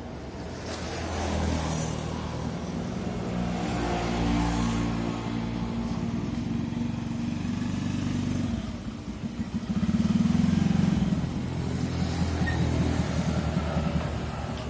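A motorcycle engine running, its pitch and level shifting, loudest with a rapid throbbing about ten seconds in.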